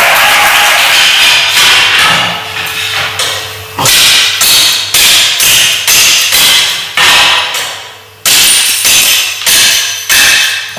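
Slate being dressed by hand: a slate-dressing knife chopping the edge of a roofing slate against the straight iron edge of the dressing bench, a run of sharp strikes about two a second, each ringing briefly. A loud rushing noise fills the first couple of seconds before the chopping starts.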